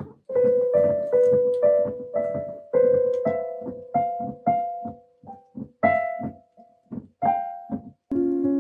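Piano music: a simple melody of single struck notes, each dying away, about two a second. About eight seconds in it cuts abruptly to steady, held keyboard chords.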